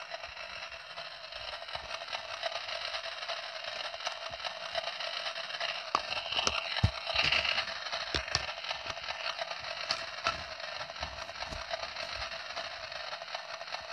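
Plastic toy cooking pot and lid being handled close to the microphone: scattered light knocks, clicks and scrapes, most of them in the second half, over a steady background hiss.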